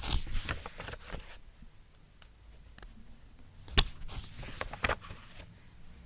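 Book pages being flipped, a quick run of papery riffles and flaps through the first second and a half, then a second run with a sharp snap of a page at the start, about a third of the way in.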